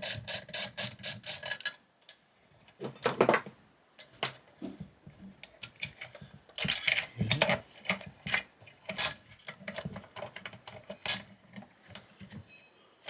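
A hand ratchet clicking rapidly and evenly, about four clicks a second, as a fastener is undone; it stops a couple of seconds in. After that come scattered knocks and clatter of metal parts being handled.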